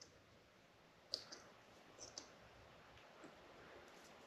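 Faint clicks and handling of battery wiring connectors being plugged together on an e-bike, joining a second battery into the wiring. The sharpest click comes about a second in, with a couple more around two seconds and a softer one past three seconds.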